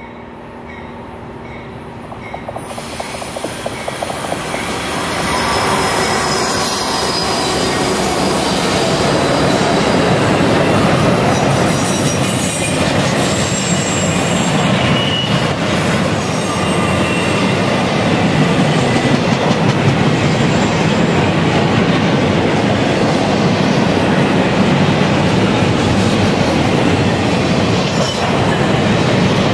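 Canadian National freight train passing on the mainline. It grows louder over the first six seconds as it arrives, then holds a steady rumble and clatter of wheels on rail, with faint high wheel squeal now and then.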